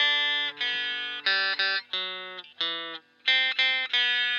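Electric guitar strumming a series of chords, each struck and left to ring, about two a second, with a short break about three seconds in.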